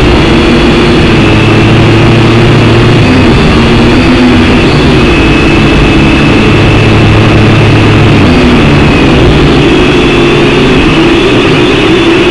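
Syma X5C quadcopter in flight, its four small brushed motors and propellers giving a steady buzzing whine that wavers a little in pitch as the throttle shifts. One of the motors has just been replaced.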